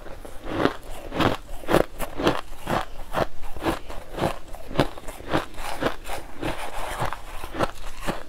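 A mouthful of crushed ice being chewed, crunching steadily about twice a second.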